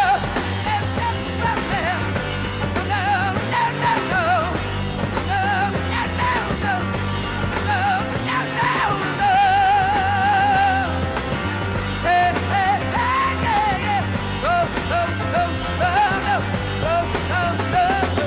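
Hard rock power trio playing live: electric guitar, bass and drums, with the lead singer wailing and yelling in long vibrato-laden notes that carry no recognisable words.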